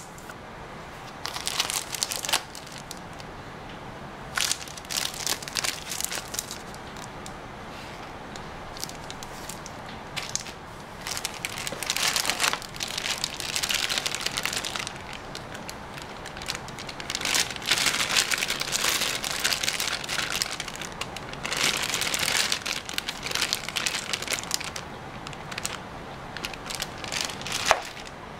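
Clear plastic bags around cables crinkling and rustling as they are handled, in irregular bursts with short quieter pauses between.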